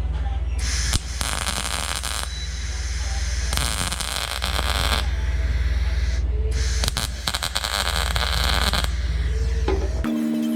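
Welding arc crackling on sheet metal in three bursts of one to two seconds each: short stitch welds filling a patch panel into a fender's side-marker hole. A steady low hum lies underneath.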